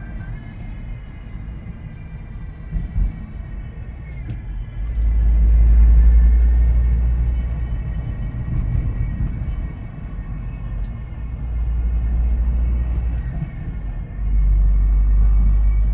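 Whine from the gearbox of a 2005 Volvo V70 2.4: several steady high tones that drift slightly in pitch, over a low rumble that swells loudly several times. The owner blames the gearbox; the noise is there in every gear and in neutral, whatever the engine speed and whether the clutch is pressed or not, and it changes with the gear selected.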